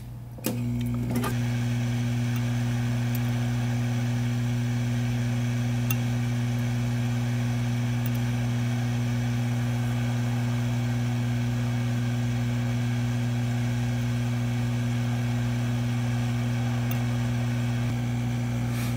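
Hot-air rework station switched on about half a second in and running steadily: a blower hum with an even hiss of air, heating the underfill around the PMIC to soften it for scraping.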